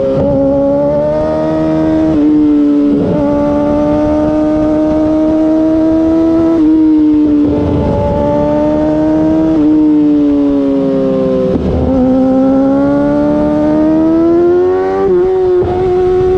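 2008 Yamaha R6's 599 cc inline-four running through an Akrapovic exhaust in second gear, heard from the rider's helmet. It holds fairly steady revs with the pitch rising gently under throttle and dipping each time the throttle is eased, several times over.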